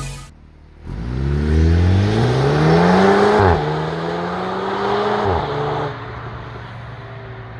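VW T-Roc R's stock-exhaust 2.0-litre turbo four-cylinder accelerating hard: the revs climb, drop sharply about three and a half seconds in as at a gear change, pull again, then fall away near the end to a low steady rumble.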